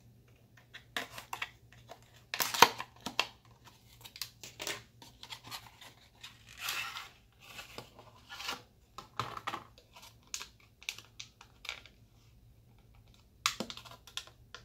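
Cardboard box and clear plastic tray of an ADATA M.2 SSD being opened by hand: irregular crinkling, tearing and clicking of plastic and card, loudest about two and a half seconds in.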